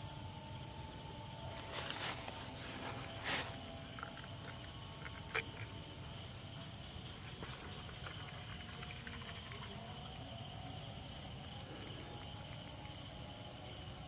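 Night insects chirring steadily in several high tones. A few brief rustles about two to three seconds in, and a single sharp click a little after five seconds.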